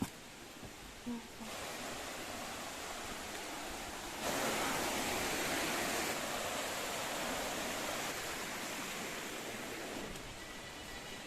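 Steady rush of falling water from a waterfall, jumping louder about four seconds in and easing near the end.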